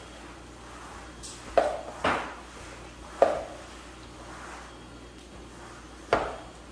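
Four sharp clinks of a kitchen utensil knocking against a pan or dish, spaced irregularly over several seconds, each with a short ring.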